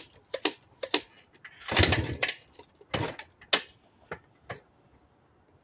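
Yamaha YZ490 two-stroke single being kicked over without firing: one loud kick about two seconds in spins the engine briefly. Sharp clicks and clunks from the kick-start lever and its gearing come before and after it.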